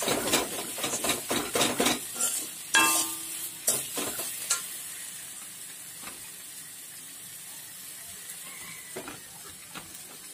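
A metal ladle scrapes and stirs a masala in a metal kadai, in rapid strokes for about four and a half seconds. There is one ringing metal clang about three seconds in. After that, only the steady sizzle of the frying is left.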